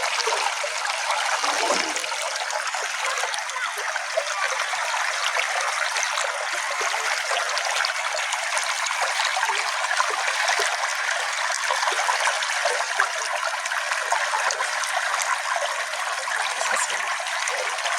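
Small stream flowing, a steady trickling babble of water with no deep rumble and no break.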